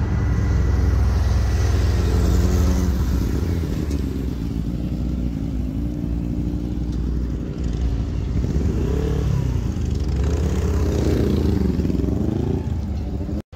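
A group of motorcycles riding past, their engines loud, with the pitch rising and falling several times as they pull away and change gear. The sound cuts off suddenly just before the end.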